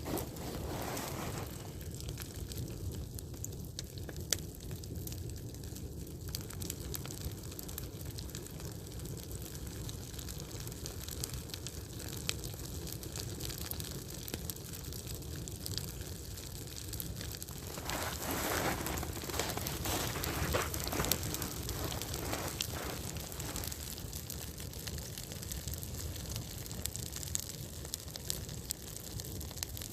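Small wood campfire crackling, with many sharp pops over a steady hiss; the hiss swells louder for a few seconds about eighteen seconds in.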